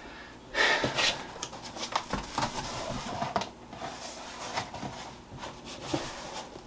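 Cardboard box and packing being handled and pulled open: irregular rustling and scraping with scattered knocks and clicks, loudest about half a second to a second in.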